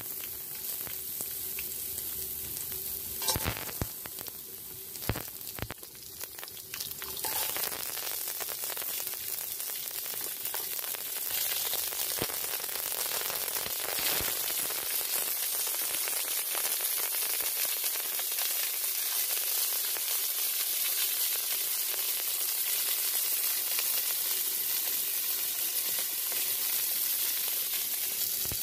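Crab pieces and julienned ginger frying in hot oil in a stainless steel wok: a steady sizzle that grows louder as more crab goes in, with a few knocks of shells against the pan in the first seconds.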